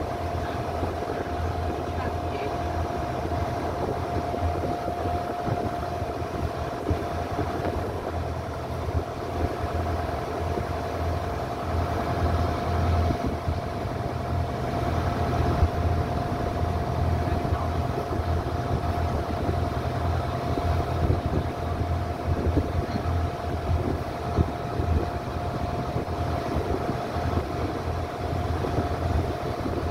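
Small passenger ferry boat's engine running steadily while underway: a continuous low drone with a constant higher hum riding over it, under a steady rush of noise.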